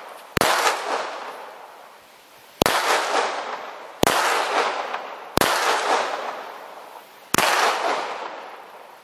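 Five single gunshots fired one after another at uneven gaps of one to two seconds. Each is a sharp crack followed by a long echoing tail that dies away before the next shot.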